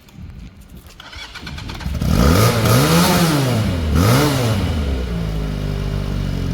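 A 250cc motorcycle engine revved twice in quick succession, each rev rising and falling in pitch, then settling to a steady idle.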